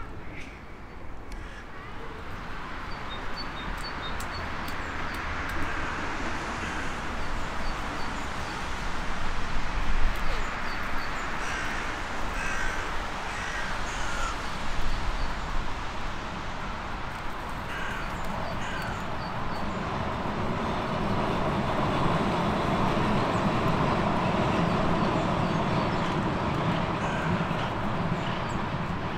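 Hooded crows cawing: short calls in several scattered bouts over steady background noise.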